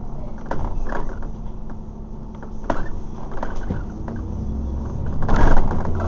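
Double-decker bus heard from inside on the move: the engine runs low and steady under scattered clicks and knocks of the body rattling, with a short, loud noisy burst about five seconds in.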